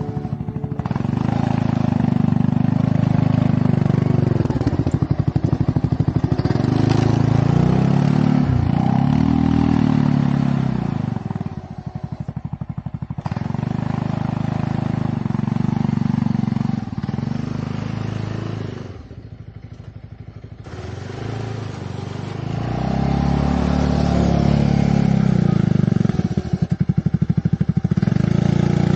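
An engine running under way, with a pulsing note that swells and eases off. It drops back briefly about twelve seconds in and again around twenty seconds, then picks up again.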